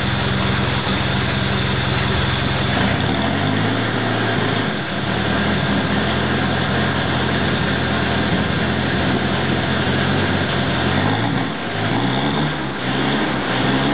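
Mitsubishi Pajero turbo engine idling from a cold start with a random misfire. The engine speed lifts about three seconds in and then wavers unevenly, dipping and climbing again near the end. The fault shows for 30 seconds to 3 minutes after a cold start or until the engine is revved, and comes with power down and poor fuel economy.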